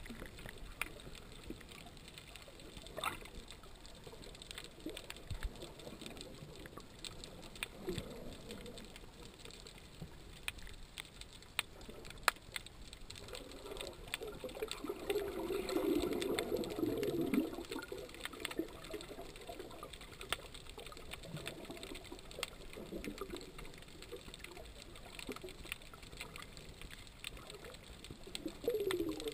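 Underwater sound picked up by a GoPro in its waterproof housing: muffled water movement and bubbling with scattered sharp clicks throughout. It gets louder for a few seconds around the middle as a snorkeler dives past, trailing bubbles.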